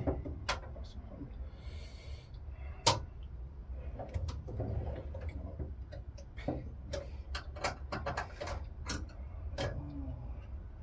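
Scattered light clicks and taps of a hand tool and metal parts being handled at a motorcycle carburettor, with one sharper knock about three seconds in, over a steady low hum.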